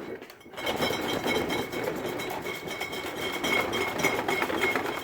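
Glass bottles rattling and clinking against each other in a shaken refrigerator door shelf, with ringing glass tones over a deeper rattle from plastic items in the door. It starts about half a second in and goes on steadily.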